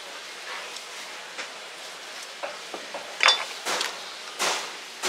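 A butcher's knife working along a pork carcass: a few soft clicks and scrapes, then three louder scrapes and clinks about three to four and a half seconds in, the sharpest with a brief metallic ring, over a steady background hiss.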